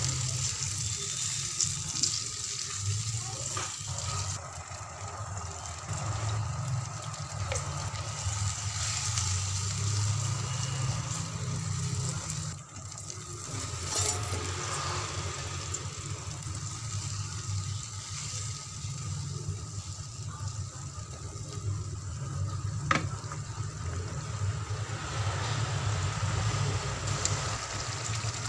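Spicy tomato-chilli sauce bubbling and simmering in a coated frying pan, stirred with a spatula that clicks against the pan a few times. A steady low hum runs under it.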